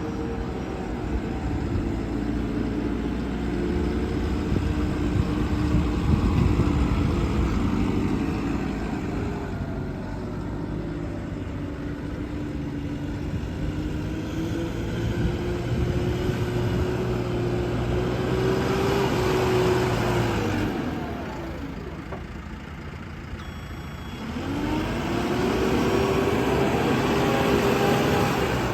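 Diesel engine of a JCB backhoe loader running at working revs. About three-quarters of the way through it drops sharply to a low idle, then revs back up.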